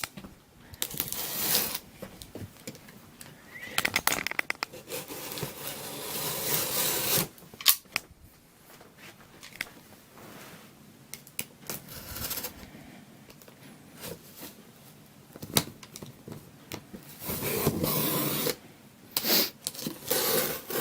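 Cardboard box being opened by hand: packing tape tearing and cardboard flaps scraping and rustling in several stretches, with scattered clicks and knocks between them.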